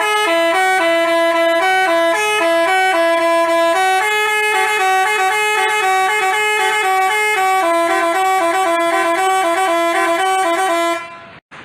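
Telolet basuri multi-tone bus horn playing a quick melody of held notes, two pitches sounding together and stepping up and down; it cuts off near the end.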